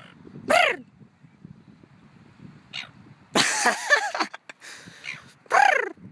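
Red-billed gulls calling with harsh squawks that slide down in pitch. There is one about half a second in, a loud run of calls between about three and four seconds, and another near the end.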